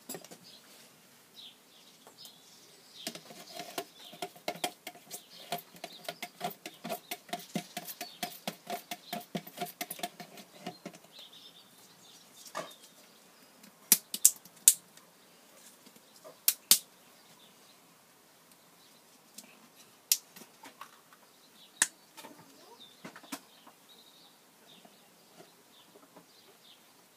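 A wooden-handled putty knife stirring paint in a plastic paint tub: a run of quick scraping knocks against the tub for about eight seconds, with a ringing note from the plastic. Afterwards come several separate sharp clicks.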